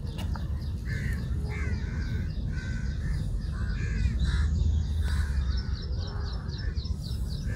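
Birds calling in the background: short calls repeated about twice a second, joined in the last two seconds by a quicker run of high chirps, over a steady low rumble.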